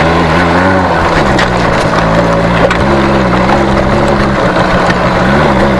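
Small two-stroke motorcycle engine idling steadily, its pitch wavering briefly with light throttle near the start and again near the end.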